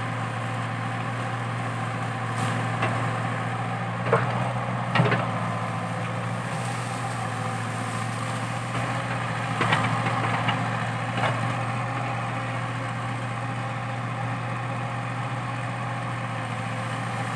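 Komatsu PC80 excavator's diesel engine running steadily as it works at a eucalyptus stump, with a few short sharp cracks and knocks, the loudest about four and five seconds in and a cluster more around ten to eleven seconds.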